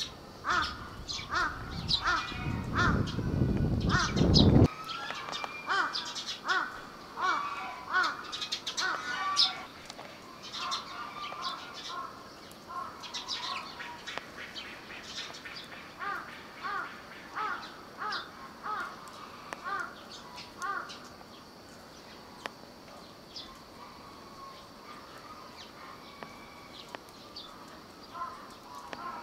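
Crows cawing over and over, short harsh calls often coming two or three a second and thinning out later on. A low rumble runs under the first few seconds and cuts off suddenly.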